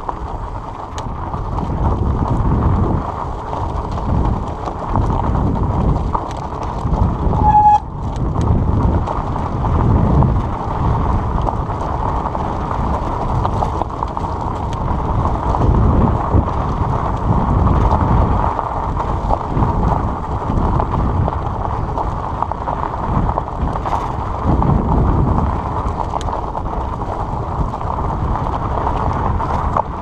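Fat-bike tandem riding over a rough gravel track: a steady rumble and rattle of the wide tyres and bike over the stones, mixed with wind buffeting the microphone. A short, clear high note sounds about a quarter of the way in.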